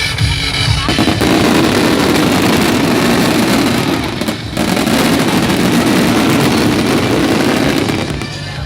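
Fireworks going off in a dense, continuous crackle and rumble that drowns out the show music, with a brief lull about four seconds in.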